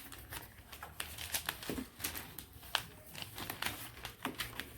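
Packaging being handled in a cardboard box: paper and plastic wrapping crinkling, with scattered light clicks and taps as parts are lifted out.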